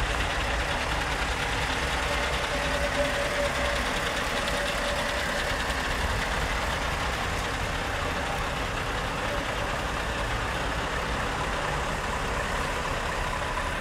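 Scania R580 truck's 16-litre V8 diesel engine running steadily at low revs.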